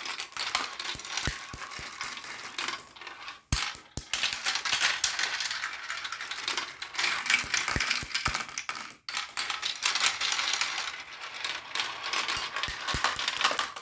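Many marbles rolling and clattering along a marble run: a dense, continuous rattle of small clicks with sharper clacks, easing briefly twice before cutting off at the end.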